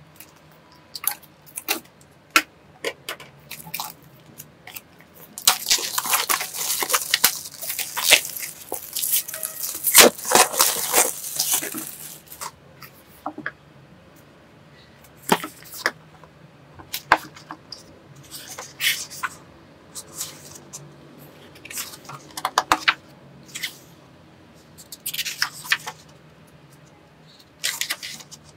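Close-up crinkling and tearing of plastic shrink-wrap being pulled off a paperback book, dense for several seconds starting about five seconds in. Before and after come scattered sharp taps, clicks and rustles of hands handling the book, with paper pages flipping near the end.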